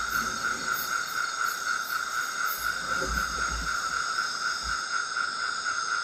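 Steady, unbroken chorus of insects and frogs: a continuous high-pitched trill with a faint pulsing shimmer above it.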